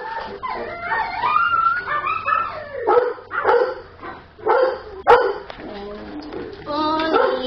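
Small dogs barking and yipping, with short high calls coming one after another.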